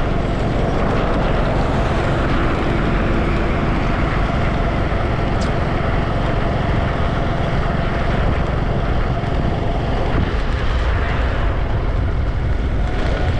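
Steady, loud vehicle running noise with no break.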